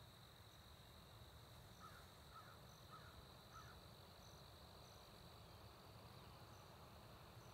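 Faint field ambience: a steady high insect trill with crickets chirping in short repeated notes, and a distant bird calling four short times about two to four seconds in.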